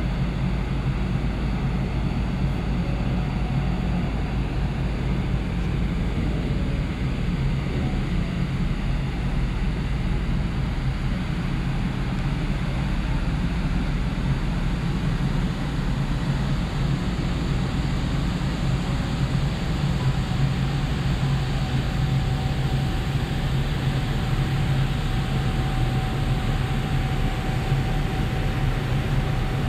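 Steady low drone of a large car ferry's machinery, heard on the open top deck near the funnel, with a faint thin whine joining about two-thirds of the way through.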